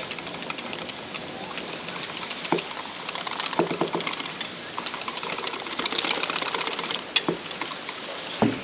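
Wire whisk beating beer batter in a stainless steel bowl: a rapid, even run of clicks as the wires strike the metal.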